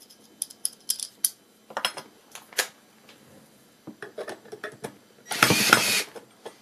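Metal bracket and screws clicking and knocking as they are handled, then a cordless drill driving a screw through the bracket into a wooden post in one short run of under a second, about five seconds in.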